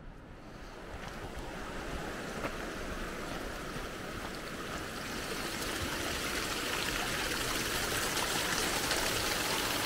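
Rushing river whitewater: a steady rush of water that grows louder over the first several seconds and then holds.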